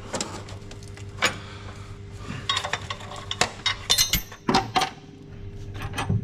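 Metal hardware clinking and clicking as a washer, nut and bolt are handled against a steel mounting bracket and chassis rail, in a run of irregular sharp clinks over a steady low hum.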